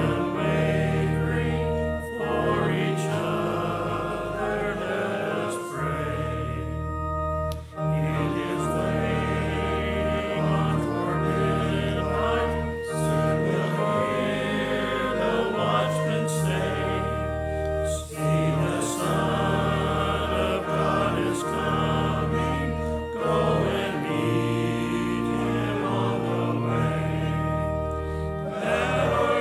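Congregation singing a hymn together with organ accompaniment, the organ holding long steady chords under the voices, with brief breaks between phrases.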